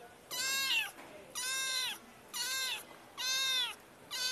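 Kitten meowing over and over: a string of high-pitched meows about one a second, each about half a second long and bending up then down in pitch.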